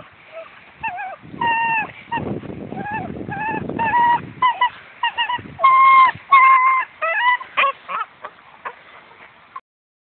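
German Shepherd puppy yelping and whining in a string of short high-pitched cries while it tugs and hangs on a cloth, with low rough growling under the first few cries; the cries stop shortly before the end.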